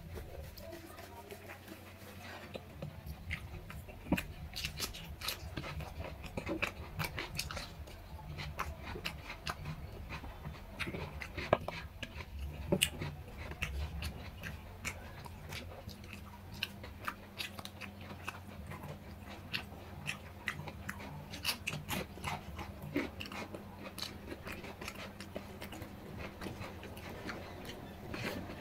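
A person eating rice and curry by hand: wet chewing and lip smacks, with fingers squishing rice against the plate. Many short clicks throughout over a faint low hum.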